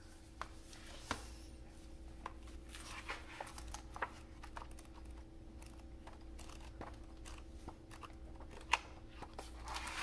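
Hardcover book handled and its pages flipped by hand: soft paper rustles and swishes with scattered light taps and clicks of the cover and pages, the sharpest tap late on. A steady low hum lies underneath.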